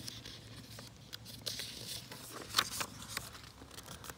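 A page of a hardcover picture book being turned: light rustling and crinkling of the stiff paper with small taps, loudest a little past the middle.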